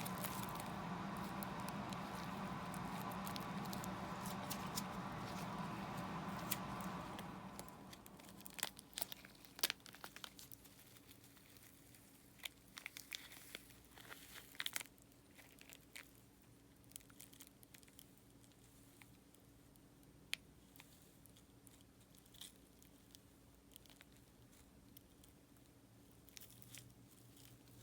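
Faint scattered clicks, taps and rustles of small jars and tools being handled while swatching glitter acrylic powder. A steady humming sound with fixed tones plays at first and fades out about seven seconds in.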